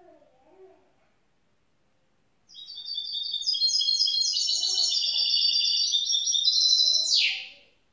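A young goldfinch mule, a goldfinch hybrid, singing one fast, high twittering phrase of about five seconds that starts a couple of seconds in and ends with a quick downward sweep.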